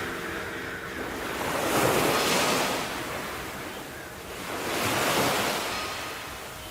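Sea waves washing on the shore: two swells of surf about three seconds apart, each rising and falling away.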